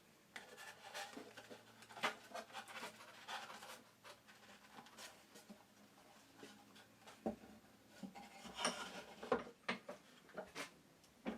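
Pieces of card being pushed into the saw kerfs of a small wooden box, making faint rubbing and scattered light taps and clicks against the wood.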